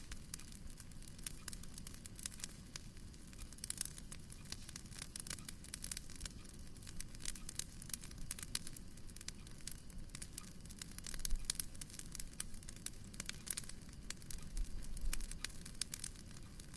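Wood fire crackling in a fireplace: a dense stream of small sharp pops and snaps over a low rumble, with a couple of louder, deeper thumps in the second half.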